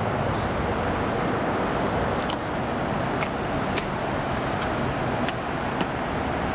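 Steady road-traffic noise, a constant even rumble and hiss with no break, with a few faint ticks scattered through it.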